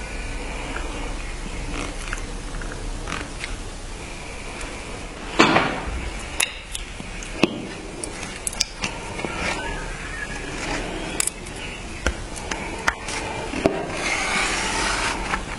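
Hand work on a knife in a workshop: scraping and rubbing with scattered sharp clicks and knocks, one louder scrape about five seconds in, and a longer hissing scrape near the end.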